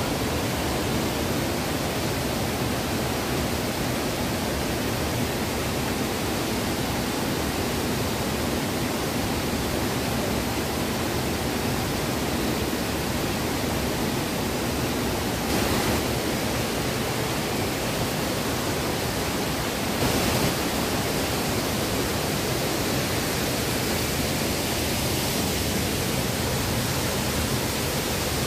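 Steady rushing of flowing river water, an even hiss that does not change, with two brief louder swishes about halfway through.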